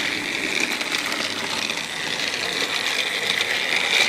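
Battery-powered TrackMaster toy engine running along plastic track: a steady whir of its small electric motor and gears.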